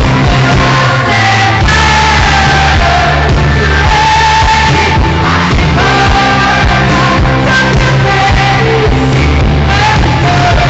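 Live pop ballad in a concert hall: a woman singing the lead in long, held notes over a full band with drums and bass.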